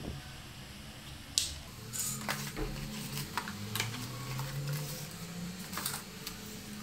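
Plastic cling film being pulled off its roll and spread on a marble worktop: scattered crackles, clicks and taps, with a sharp click about a second and a half in, over a steady low hum.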